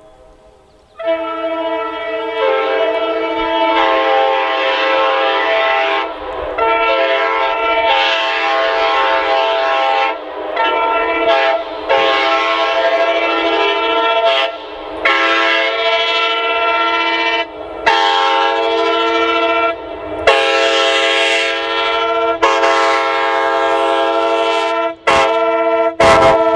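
Locomotive multi-chime air horn sounding a steady chord in a series of long blasts separated by brief breaks, starting about a second in. Two sharp clicks come near the end.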